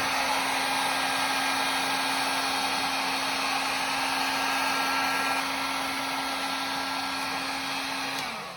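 Electric heat gun running steadily, its fan blowing with a constant motor hum, heating the axle nuts to loosen them. Near the end the motor briefly drops in pitch and level, then picks back up.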